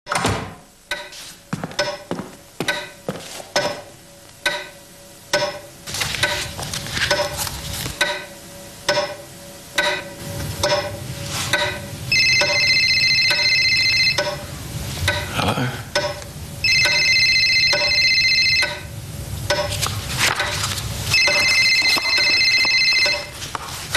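Rummaging through a handbag, its contents rattling and clattering, while a phone rings in three bursts of about two seconds each. The first few seconds hold a string of sharp, separate clicks.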